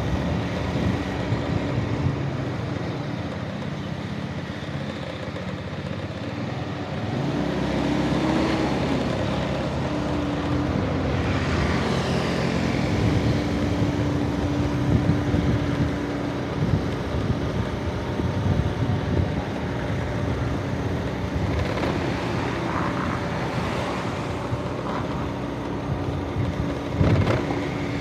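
Street traffic heard from a moving scooter: car and motorbike engines running and passing, with pitch rising and falling as vehicles go by and a brief louder burst near the end.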